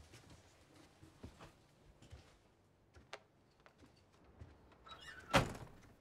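A single loud, dull thunk about five and a half seconds in, amid faint scattered small clicks.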